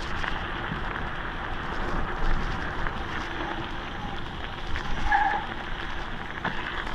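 Mountain bike rolling fast downhill over a gravel road: steady tyre noise and rattling over the stones, with small knocks. A short high tone sounds about five seconds in.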